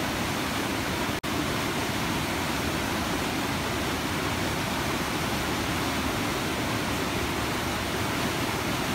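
Waterfall: a river cascading over rock ledges, a steady dense rush of water with a momentary break about a second in.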